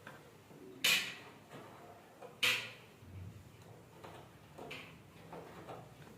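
A few separate knocks and scrapes of something being handled. The two loudest come about a second and a half apart near the start, followed by fainter ones.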